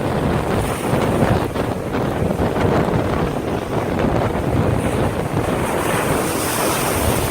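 Storm wind buffeting the microphone hard over the rush of heavy surf breaking on the beach. A higher hissing rush swells up near the end.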